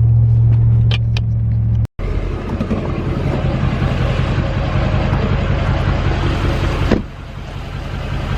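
Engine and road noise inside a moving car: a steady low drone, then after a brief dropout about two seconds in, a rushing road and wind noise over the drone, easing slightly near the end.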